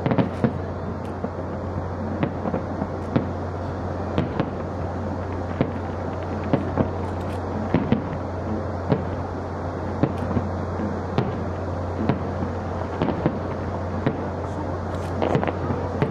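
Aerial fireworks shells bursting, many sharp bangs at an irregular pace of about one a second over a steady low background noise.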